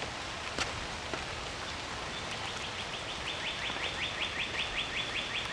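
Steady outdoor hiss of light drizzle. From about two seconds in, a bird gives a high rapid trill of evenly repeated chirps, about six or seven a second, that runs on past the end.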